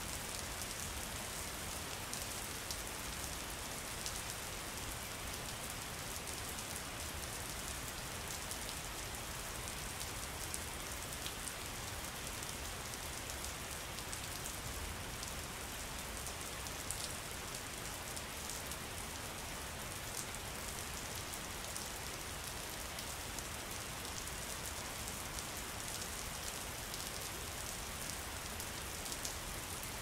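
Steady rain falling, an even hiss of rainfall with many small, sharper drop ticks scattered through it.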